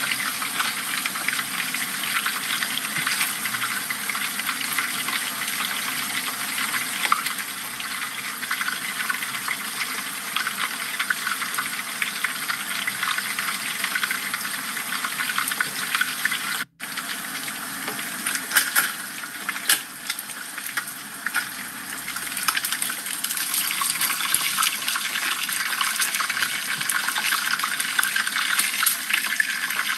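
Whole dorado fish deep-frying in a pan of hot oil, the oil sizzling and crackling steadily, with a few louder pops a little past halfway.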